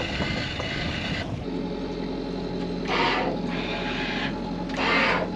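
Sailboat's inboard engine running steadily under motor. A high whine stops about a second in, and two short rushes of noise come about three and five seconds in.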